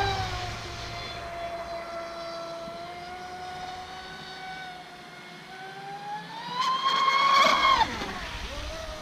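Traxxas Spartan RC speedboat's brushless motor on 6S whining as the boat runs. The pitch eases down and holds, then climbs to a loud peak about seven seconds in as it accelerates hard, and drops sharply as the throttle comes off.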